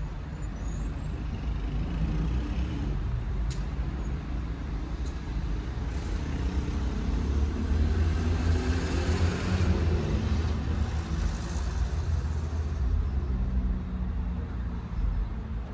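Tofaş Şahin engine with an SS Magnum exhaust idling steadily, heard from inside the cabin as a low, even hum. A louder rushing noise swells and fades midway.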